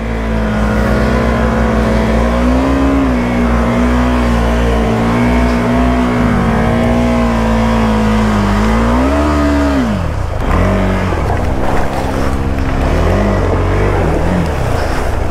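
KTM 390 Adventure's single-cylinder engine running hard at fairly steady revs. About nine seconds in the revs climb briefly and then drop off sharply, and the engine runs on at lower, uneven revs.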